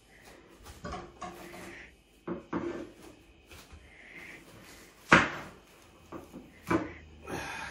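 A kitchen knife sawing and scraping against a plate as it cuts through sticky, syrup-covered toast, with several sharp knocks and clinks, the loudest about five seconds in.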